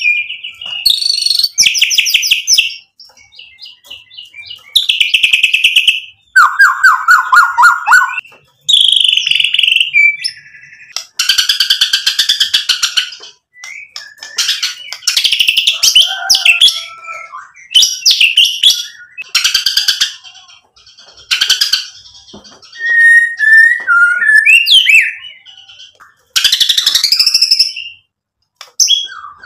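Male white-rumped shama (murai batu) singing loudly in full song, in phrases of a second or two with short pauses between them. The phrases mix clear whistles, rapid rattling trills and harsh chattering notes, the varied material (isian) of a bird showing off its repertoire.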